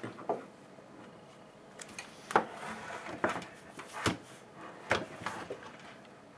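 A handful of sharp knocks and clicks, about six spread over several seconds, the loudest a little over two seconds in and again about four seconds in: hedge trimmer parts and tools being handled and set down on a workbench.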